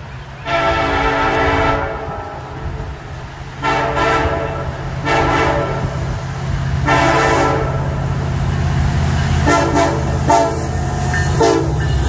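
Freight locomotive's air horn, a multi-note chord, sounds four separate blasts, the first the longest. Three quick short toots follow near the end as the train comes alongside, over the steady low rumble of the approaching diesel locomotives.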